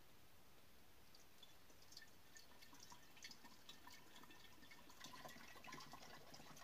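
Water trickling and dripping from a funnel into the plastic reservoir tube of an electrolysis dry cell, faint, starting about a second in and growing denser near the end.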